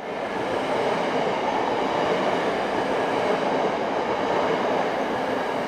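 Wellington Matangi electric multiple unit, two coupled sets, running through a station at speed without stopping: a steady rush of wheels on rail that eases off near the end as the last car goes by.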